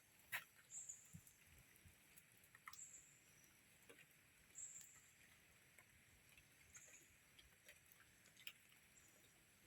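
Faint, short high-pitched chirps from a small animal, repeating about every one to two seconds, with scattered soft clicks.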